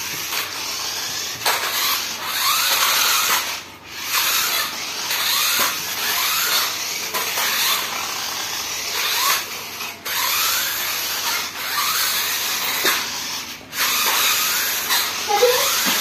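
Small electric motors and gearboxes of remote-control monster trucks whirring as they drive, a hissing whir with short whines that rise in pitch as the motors speed up. The sound cuts out briefly a few times, when the throttle is let off.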